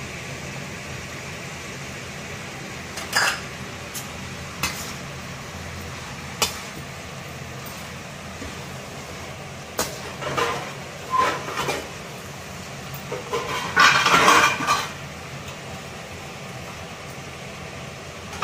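Metal ladle scraping and clinking against a stainless steel pan while stirring vegetables. The strokes are scattered, with the busiest, loudest stretch about three-quarters of the way through, over a steady low hum.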